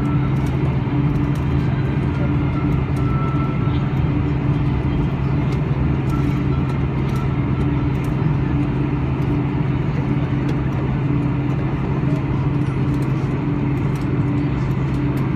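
Boeing 747-400 after landing: a steady low hum and rumble, with a strong steady low tone throughout.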